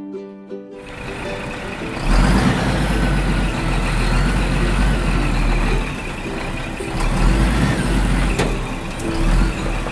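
Truck engine sound, a loud low rumble that swells in about two seconds in and holds with a few dips, over faint background music.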